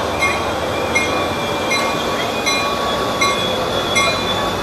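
Passenger train coaches rolling past close by: a steady rumble with regular wheel clicks about every three-quarters of a second.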